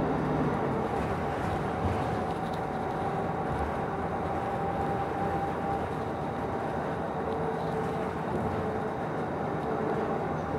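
Steady engine and road noise heard from inside the cabin of a moving Nova Bus LFS city bus, with a faint whine running through it.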